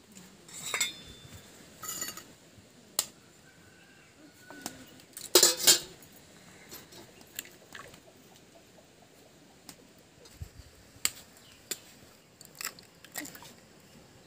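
Utensils clinking and scraping against metal cookware in scattered, irregular strokes, with a louder clatter about five seconds in.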